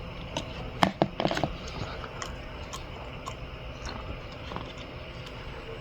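Handling noises from small hard objects: a quick cluster of sharp clicks and knocks about a second in, then scattered light taps over a steady low hum.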